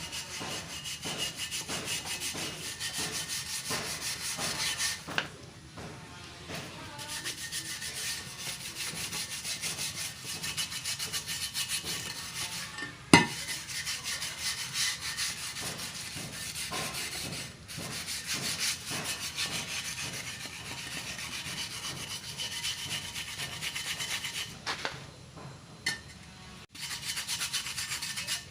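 Quick, repeated rubbing strokes on a motorcycle wheel rim as its paint is stripped off, pausing briefly a few times. There is one sharp knock about halfway through.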